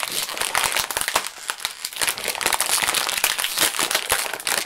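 Thick snack bag crinkling and crackling loudly as it is pulled open by hand.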